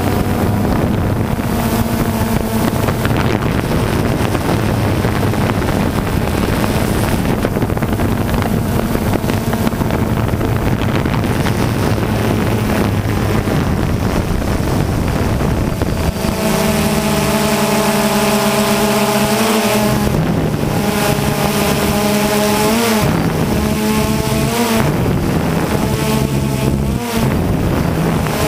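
Motors and propellers of the camera-carrying aircraft running steadily, with wind rushing over the microphone. About halfway through the motor hum becomes clearer, and its pitch wavers up and down several times as the motors change speed.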